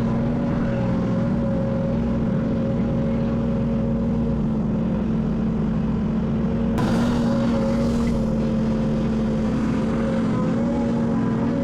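Heavy diesel earthmoving machinery running steadily at a constant engine speed. About seven seconds in, a brief rush of noise lasts roughly a second.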